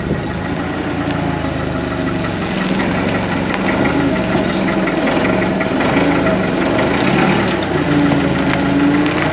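LPG forklift engine running steadily as the forklift creeps forward.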